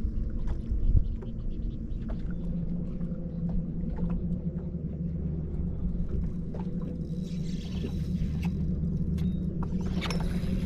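Boat motor running steadily with a low hum, with scattered faint clicks and a brief hiss near the end.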